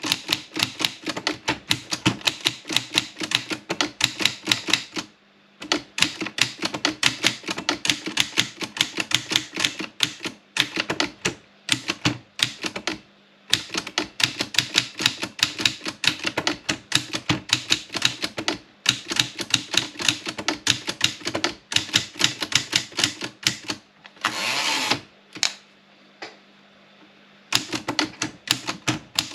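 Olympia Plana manual typewriter being typed on fast: a dense run of sharp key strikes with a few short pauses. About 24 seconds in there is one longer rasping sweep, the carriage being returned, then a short lull before the typing resumes.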